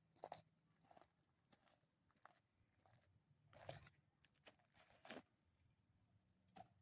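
Near silence with faint, scattered rustles and light clicks from hands baiting a fishing hook with worms.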